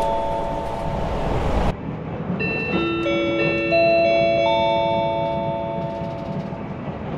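Train's onboard announcement chime over the public-address speakers: a short multi-note melody of bell-like tones over the low rumble of the train running. It breaks off abruptly under two seconds in, then plays again from the start and fades out.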